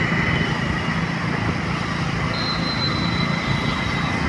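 Ride on a two-wheeler: steady engine hum and rushing road and wind noise, with a thin steady whistle over it and a brief higher tone in the second half.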